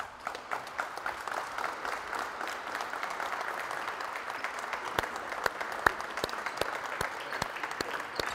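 A group of people applauding: many hands clapping steadily, with a few sharper single claps standing out.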